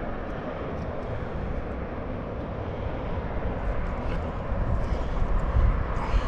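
Wind noise on the microphone: a steady low rush that grows louder in gusts about two-thirds of the way through.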